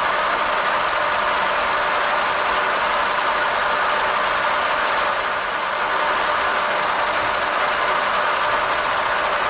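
Metalworking machine tool running steadily under power while drilling a hole in a metal part: an even, continuous machine noise with no pauses.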